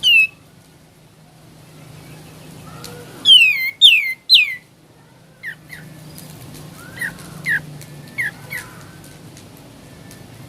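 A kapas tembak bulbul calling in a series of sharp, downward-sliding whistled notes. Three loud ones come in quick succession a few seconds in, followed by shorter, softer notes spaced about half a second to a second apart. A faint steady low hum runs underneath.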